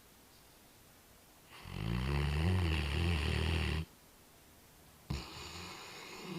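Great Dane snoring: one long, loud rasping snore that stops abruptly, then a quieter snore starting suddenly near the end.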